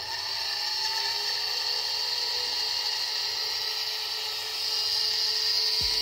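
Small computer cooling fan running with a steady, high-pitched whine of several tones from its damaged bearings. This is the bearing noise that a drop of oil can sometimes cure.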